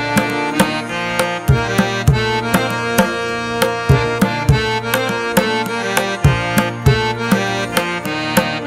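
Background music: repeated drum strikes with low gliding thumps over a sustained melody.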